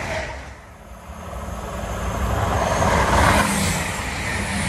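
Passenger train passing at speed close by, a rushing rumble with a steady low drone. It dips briefly just under a second in, then swells to its loudest about three seconds in.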